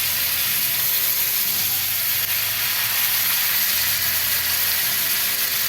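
Marinated chicken leg pieces sizzling steadily in hot sunflower oil and butter in a pan on high flame.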